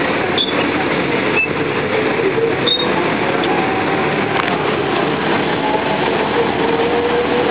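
Tourist road train's engine running with a steady rumble of vehicle and street noise heard from its open-sided carriage; a faint engine hum rises a little near the end.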